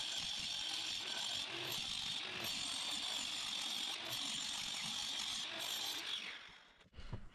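Right-angle grinder with a diamond disc cutting into a plastered wall, running steadily under load as it scores a channel for pipes. The sound dies away about six seconds in.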